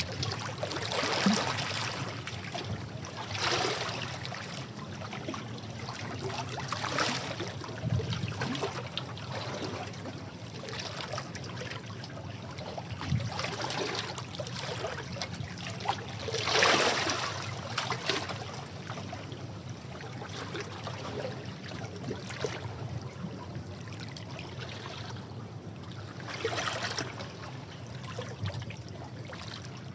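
Sea waves breaking and washing over rocks, a steady wash of water with irregular louder surges, the strongest about halfway through.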